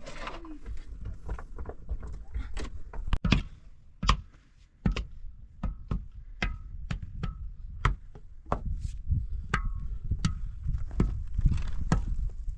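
A run of sharp tool strikes, roughly one or two a second at an uneven pace, some with a short ring.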